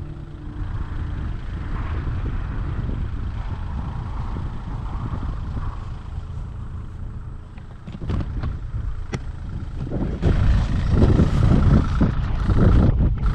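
Mini excavator's engine running steadily, with a few sharp knocks about eight and nine seconds in, and louder from about ten seconds in as the machine works.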